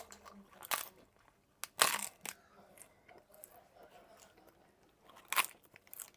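Crisp poppadoms crunching and cracking as they are bitten and chewed: a few sharp crunches, the loudest about two seconds in and another near the end.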